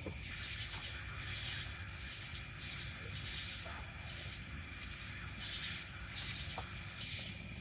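Night insects chirping in a steady chorus, pulsing a little under once a second, over a low steady background rumble.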